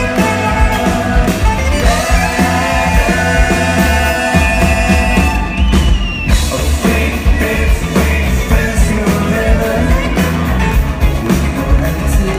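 Live rock band playing, with a saxophone solo carried over an electric guitar, bass and a steady drum beat.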